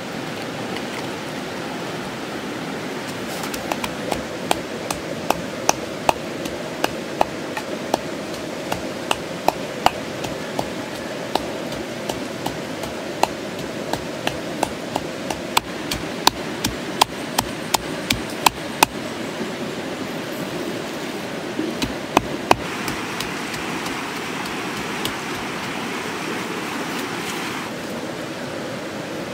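Pestle pounding in a mortar: a run of sharp, irregular knocks about two a second that stops about two-thirds of the way through, over a steady rushing stream.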